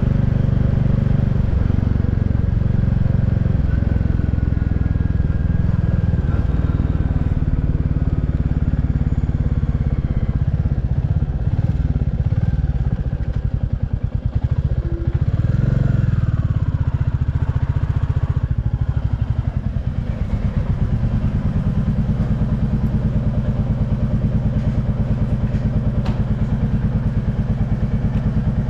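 Royal Enfield Classic 350 Reborn's 349 cc single-cylinder engine running, its exhaust note changing with the throttle through the first part. About two-thirds through it settles into a steady, even idle beat.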